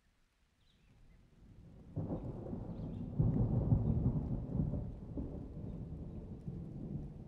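A roll of thunder: a low rumble swells from about a second in, breaks in loudly at about two seconds, is loudest around three to four seconds, then slowly rolls away.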